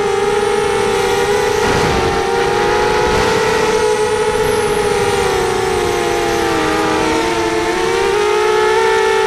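FPV racing quadcopter motors and propellers whining, several close-pitched tones that waver and dip as the throttle changes.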